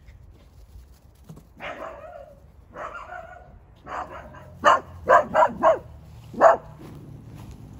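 Miniature dachshund barking: a few softer barks, then a quicker run of five loud, sharp barks in the second half.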